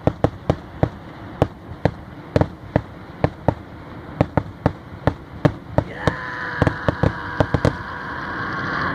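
Fireworks going off in quick, irregular succession: many sharp bangs, several a second. About six seconds in, a steady pitched tone joins under the bangs.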